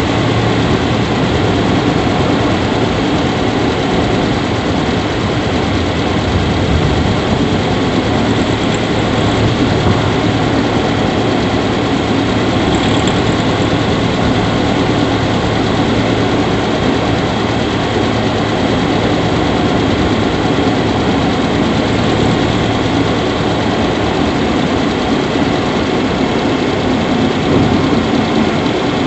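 Subaru Levorg 1.6GT-S's 1.6-litre turbocharged flat-four idling steadily, heard in the engine bay. Faint high squeaks come now and then, the 'kyuri' noise from the engine room that the owner suspects is abnormal and finds grows louder as the engine runs.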